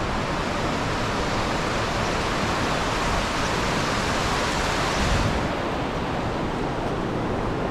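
Fast-flowing alpine river rushing over rocks, a steady whitewater rush whose upper hiss dulls a little about five seconds in.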